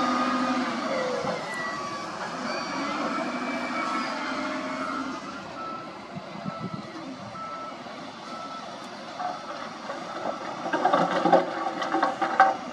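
Diesel engines of a wheel loader and a dump truck running under load, with a reversing alarm beeping. Near the end a run of irregular knocks and clatter comes as the truck's bed tips up and the load of dirt and rock slides out.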